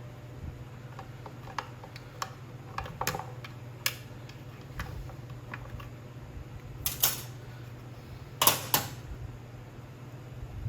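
Scattered clicks and taps of small hand tools and parts being handled on a workbench, with a few louder knocks about seven and eight and a half seconds in, over a steady low hum.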